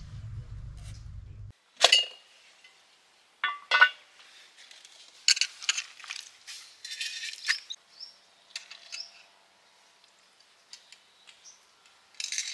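Metal cooking vessels and utensils clinking and knocking together in a string of sharp clinks with some ringing, the loudest about two and four seconds in, with lighter scraping and rattling between. A low hum stops suddenly before the clinks begin.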